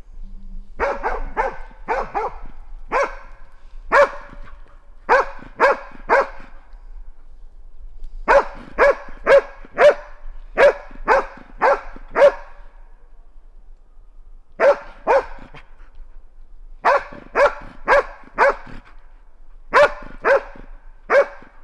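Norwegian Elkhound bay-barking at wild boar: short, sharp barks about two a second, in runs of three to nine with short pauses between.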